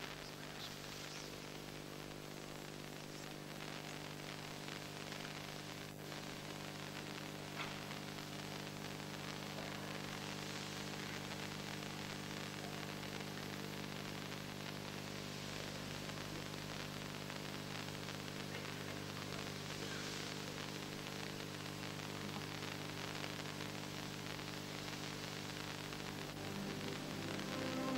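Steady hiss and electrical hum of an old videotaped TV broadcast, with a faint click about six seconds in and another near eight. Music begins to come in at the very end.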